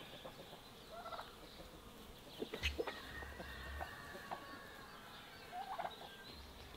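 Domestic turkey gobbling in two short rattling bursts, about a second in and near the end. A few sharp clicks about two and a half seconds in are the loudest sounds.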